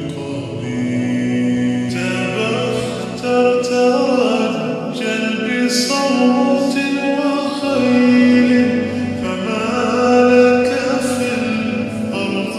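Arabic nasheed slowed down and drenched in reverb: sung vocals holding long notes over a layered, choir-like vocal backing.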